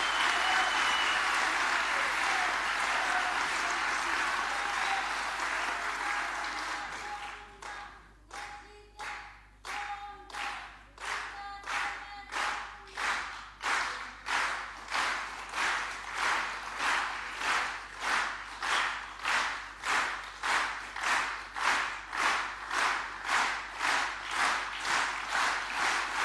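A large crowd applauding, with a few voices calling out over it. About eight seconds in, the clapping settles into slow rhythmic clapping in unison, about three claps every two seconds, and grows louder.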